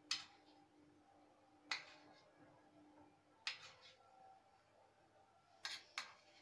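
Metal spoon clinking against a metal plate five times, about every second and a half to two seconds, with the last two close together, as broth is spooned over pieces of bread to soak them.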